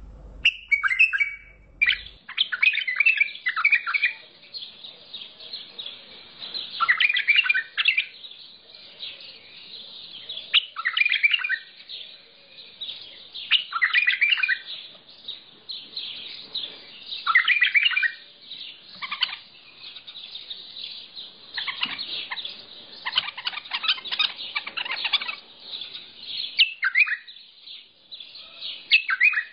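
Mandalawi bulbul (white-eared bulbul) singing: short warbled phrases recurring about every three to four seconds, with quicker chirping between them.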